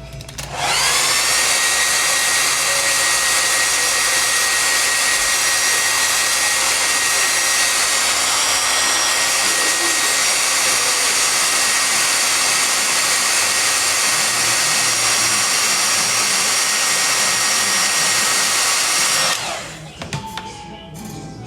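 Handheld hair dryer switched on. Its motor whine rises briefly as it spins up, then it blows steadily with a hiss and a high whine, and it cuts off shortly before the end.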